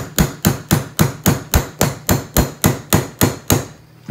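Small hammer tapping a pin punch in quick, even strokes, about four a second, driving the compression roll pin out of a Taurus 856 revolver's grip frame. The tapping stops shortly before the end.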